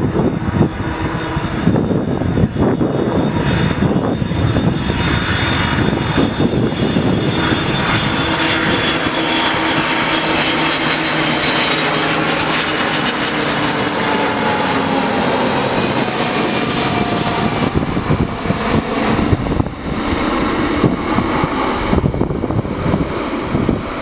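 Airbus A300-600 freighter's Pratt & Whitney PW4158 turbofans running on landing approach, a steady jet rush with high fan whine. As the aircraft passes close by, the whine slides down in pitch, then the noise thins as it heads down to the runway.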